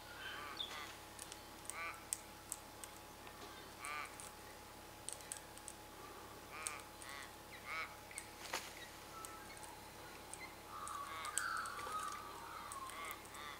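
Several wild birds calling at a feeder: short harsh calls and sharp chips scattered throughout, with a longer burst of chattering about eleven seconds in.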